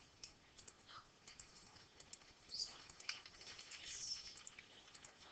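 Faint scattered clicks of a computer mouse and keyboard being worked.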